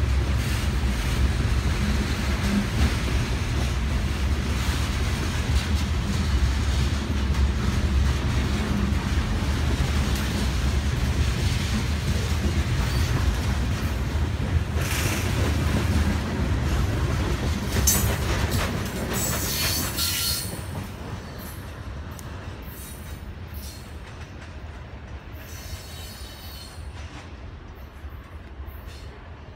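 Freight train's covered hopper cars rolling past close by: a steady rumble of steel wheels on rail, with a few brief high squeals from the wheels. About twenty seconds in, the last cars go by and the sound drops and fades as the train moves away.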